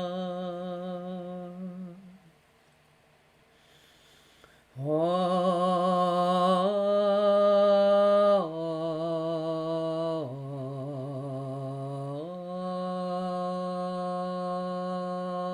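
A woman's voice toning long, slow, sustained notes low in her range. One tone fades out about two seconds in, and after a breath-long pause a new tone swells in and moves between held pitches: a step up, two steps down, then back up, loudest near the middle.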